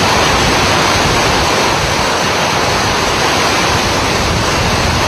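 Hurricane-force wind and driving rain, a loud steady rush of noise with no break, as the storm surge comes ashore.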